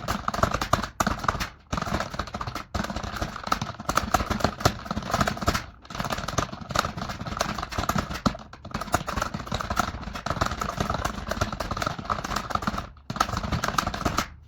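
Very fast typing on a computer keyboard: a dense, unbroken stream of keystroke clicks with a few brief pauses, stopping abruptly at the end.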